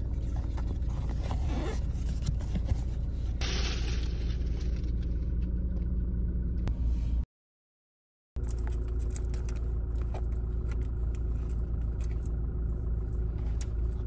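Steady low rumble of a running vehicle, as heard from inside, with a few small clicks and scrapes. It cuts out completely for about a second midway, then carries on.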